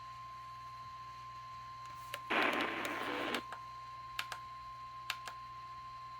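A steady single-pitch alert tone near 1,000 Hz, the long warning alarm tone that comes before a weather-radio warning broadcast, here a flash flood warning. A short burst of noise sounds about two seconds in, with a few faint clicks.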